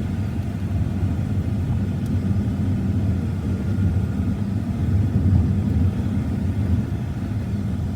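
Steady low rumble of a car driving along.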